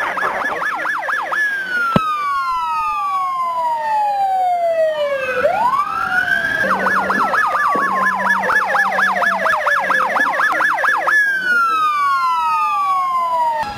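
Police car electronic siren switching between a fast yelp and a slow wail: a quick warble, then a long falling tone that rises again, another quick warble, and another fall near the end. A single sharp click about two seconds in.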